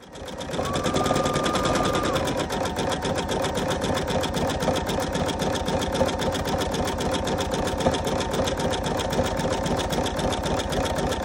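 Computerized embroidery machine starting up and stitching out a fill at speed: a fast, even needle rhythm with the motor's whine rising as it comes up to speed in the first second.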